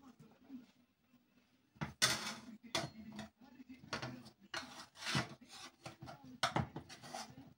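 Metal spatula and tongs scraping against a metal pan and bowl as food is lifted out and served, in a series of short scrapes starting about two seconds in.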